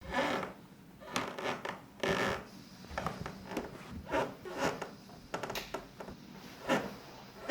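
A run of short, irregular rustling and scratching sounds, about a dozen over several seconds, with a few light knocks among them.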